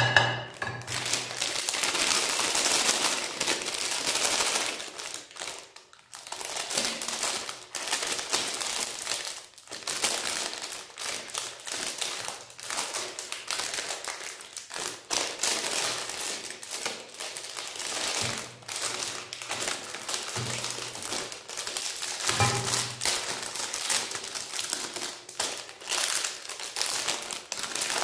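Metallised plastic wrapper of a Magnum ice cream bar crinkling as it is torn open and peeled back from the bar, a continuous crackle with a couple of short pauses.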